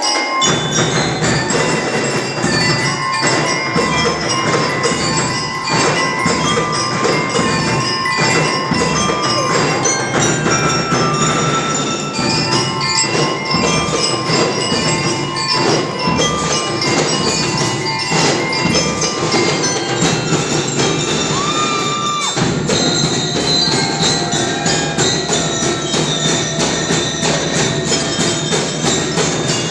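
Drum and lyre band playing: bell lyres ringing out a melody over a steady beat of marching drums, with a brief break about two-thirds of the way in.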